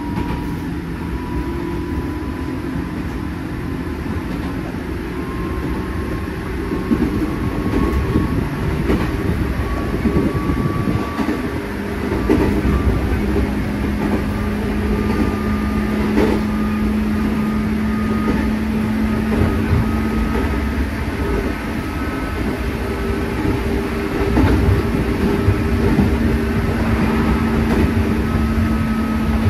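Running sound heard from inside a JR East 205 series 3100-subseries electric train under way: a steady rumble with a thin motor whine that slowly rises in pitch as the train gathers speed. A low hum joins about twelve seconds in, and the wheels knock over rail joints now and then.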